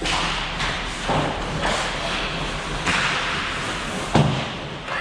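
Ice hockey play heard from the rink: a run of sharp thuds and slaps, the loudest about four seconds in, over steady rink noise.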